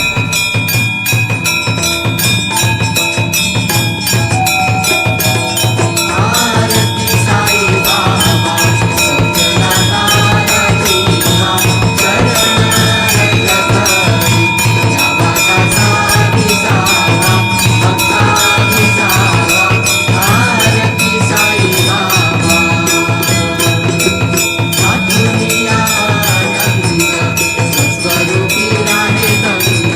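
Devotional aarti music with a bell rung in rapid, even strokes, its ringing tones held steady throughout. A wavering melody joins about six seconds in.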